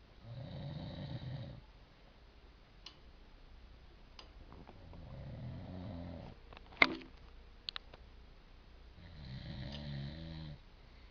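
A man snoring in his sleep: three long snores about every four to five seconds, each lasting a second and a half or so. A single sharp click about seven seconds in is the loudest sound.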